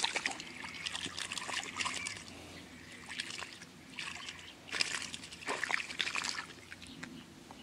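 Water trickling and sloshing, mixed with irregular short clicks and rustles from handling at the water's edge.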